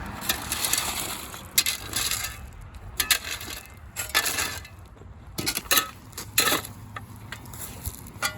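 Hand tools scraping and crunching through gravel while potholes in a road are filled, in a series of short scrapes with stones rattling, roughly one every second.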